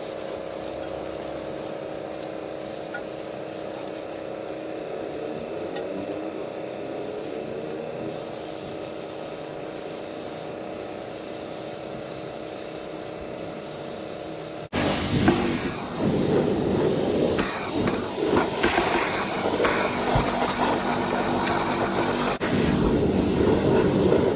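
A wheel brush scrubbing a foam-covered alloy wheel over a steady hum. About halfway through, this cuts abruptly to a louder pressure-washer spray rinsing the wheel.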